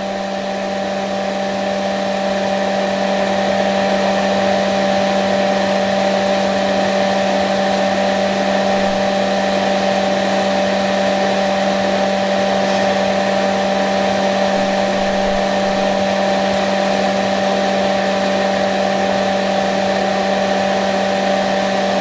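Pelonis Disc Furnace electric space heater running on its lowest setting, its fan blowing air through the heating discs with a steady whir and a constant hum. The sound grows a little louder over the first few seconds, then holds even.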